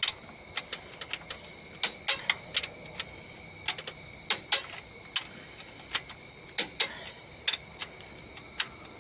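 A click-type torque wrench, set to 70 ft-lb, breaking over on already-tightened rocker shaft bolts, with ratchet clicks as it is swung back. The sharp clicks come irregularly, some in quick pairs, about two or three a second.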